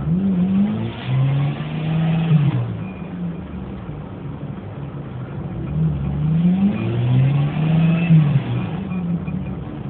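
Off-road 4x4's engine revving up twice, each time held for a second or two and then dropping back.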